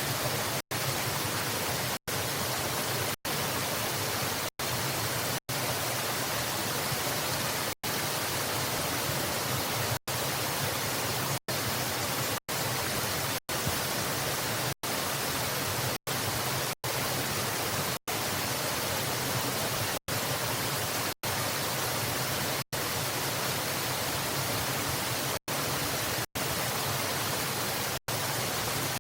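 Waterfall's rushing water as a steady, even hiss, broken by very short dropouts to silence every second or two.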